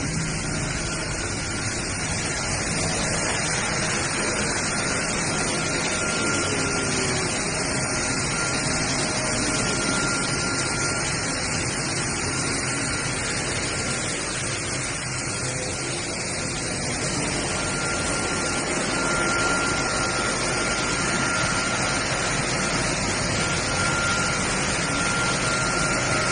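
Sawdust rotary drum dryer plant running: a steady, even industrial machinery noise, with a faint high whine that fades in and out.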